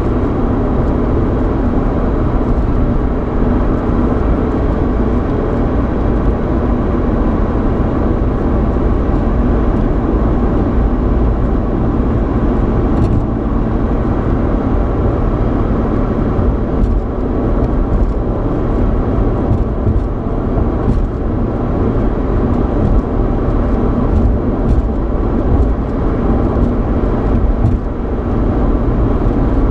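Road noise and engine hum inside the cabin of a moving 3.8-litre V6 Ford Mustang: a steady, even rumble, with a few faint ticks now and then.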